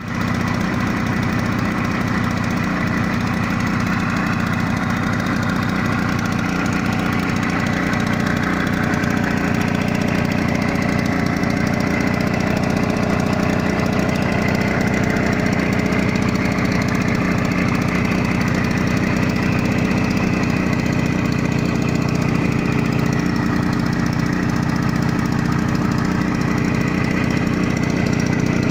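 Victa Sports 160cc two-stroke lawn mower engine running steadily at a constant speed, with an even rapid firing beat.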